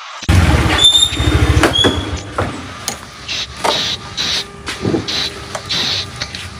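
A small motor scooter engine idling for about two seconds, then a run of short scrapes, rustles and clicks.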